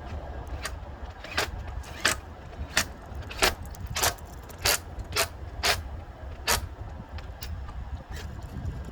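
A run of about ten sharp clicks, roughly one every two-thirds of a second and slightly uneven, over a low steady hum.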